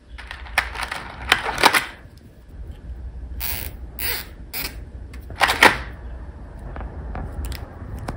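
Plastic zip ties rattling and clicking as they are handled and pulled from their box, with several short zipping rasps as ties are drawn through their ratchet locking heads. A faint steady low hum runs underneath.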